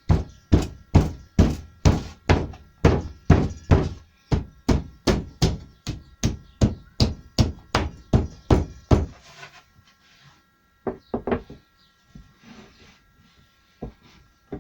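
A hammer striking steadily, about two to three even blows a second for some nine seconds, then a few scattered knocks.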